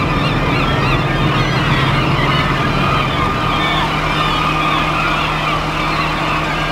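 Roll-off truck's diesel engine running steadily with a steady high whine, while gulls call over it. The low part of the engine hum drops away about three seconds in.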